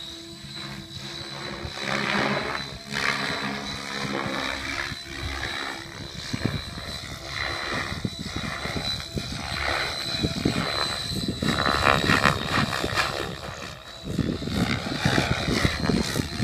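Align T-Rex 700E electric radio-controlled helicopter flying at a distance, its rotor and motor sound swelling and fading as it moves, with a faint steady high whine. Heavy irregular low rumbling joins from about six seconds in.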